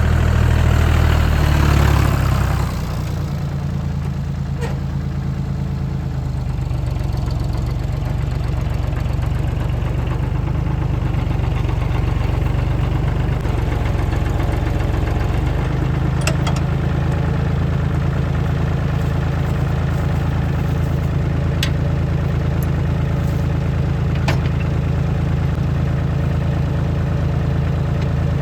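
Tractor engine idling steadily, a little louder for the first couple of seconds, with a few faint clicks over it.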